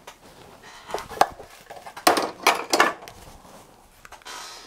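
Equipment being handled and set down on a wooden workbench: two light clicks about a second in, then a louder cluster of knocks and clatter about two to three seconds in.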